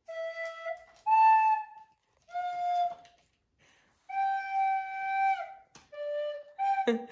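A child playing slow single notes on a flute, one note at a time with short gaps between phrases; a long held note in the middle slides down as it ends.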